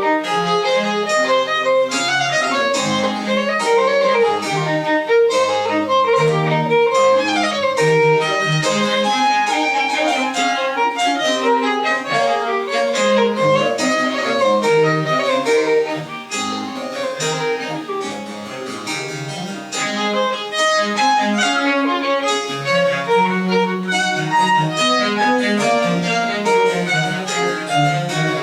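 French Baroque chamber music played live: violin in quick running passages over bowed strings and a bass line, briefly softer about halfway through.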